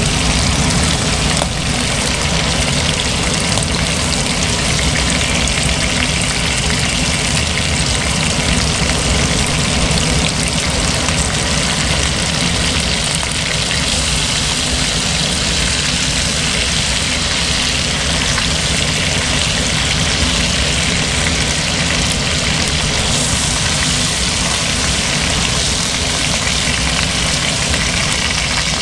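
Chicken wings sizzling as they pan-fry in oil in a stainless steel wok, a steady frying hiss while they cook to golden. A steady low hum runs underneath.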